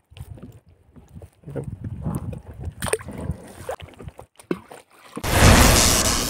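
Water sloshing around a small boat, with light knocks and handling noises. Then, about five seconds in, a loud crackling electric-zap sound effect lasts just over a second and cuts off sharply.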